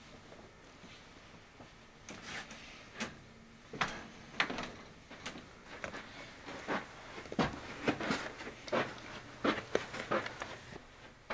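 Irregular knocks and clicks, one or two a second at times, from a person in slippers walking and bumping about a room: footsteps and handling knocks.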